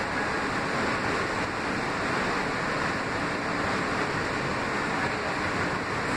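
Steady, even running noise of a Kawasaki R160B subway car, heard inside the car: wheels on the rails and motors blending into one unbroken rush between stations.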